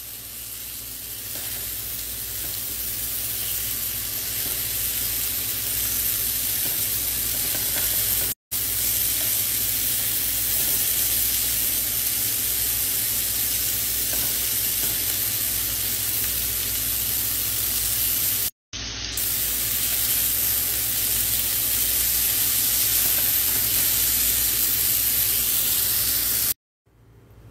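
Marinated chicken skewers sizzling in oil in a grill pan: a steady hiss that builds over the first few seconds and cuts out briefly three times.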